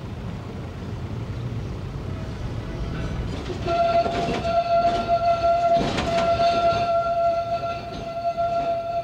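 Low rumble of street traffic and a running tram. A little over three seconds in, a steady horn tone starts and holds for about five seconds, breaking off briefly once, with a few knocks over it.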